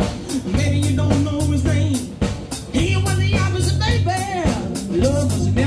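Live funky blues band playing: a drum kit beat and bass line under a bending, sliding lead melody sent through a microphone cupped in the hand.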